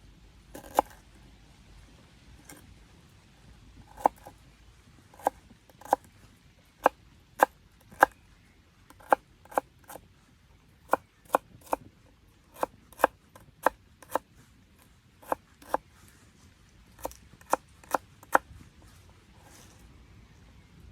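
A series of about two dozen sharp clicks, irregularly spaced at one or two a second.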